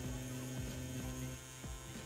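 CNC P6 rotary tattoo pen running at 9 volts on its shortest 3 mm stroke, a steady low-pitched motor tone as the needle lines into silicone practice skin, dipping briefly in level about one and a half seconds in.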